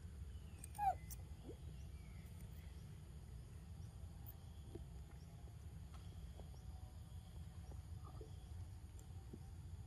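Faint outdoor background with a steady low rumble. About a second in, a single short, high animal squeak glides quickly down in pitch; it is the loudest sound, followed later by a few faint ticks.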